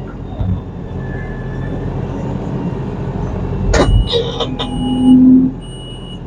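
Tractor engine running steadily, heard from inside the cab. A sharp clunk comes about four seconds in, followed by short repeating beeps and a brief louder low whine.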